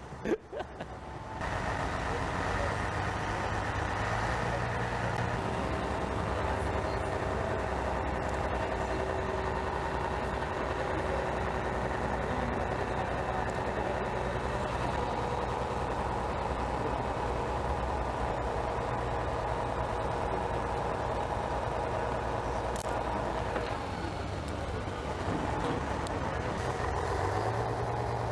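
A heavy vehicle's engine running steadily. It starts abruptly about a second in, eases off near the end, then picks up again.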